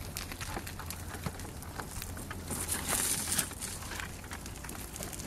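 Gravel and grit crackling and crunching under the tyres of a powered wheelchair and under walking feet on broken, gravel-strewn asphalt. A low steady hum runs underneath, with a brief hiss about halfway through.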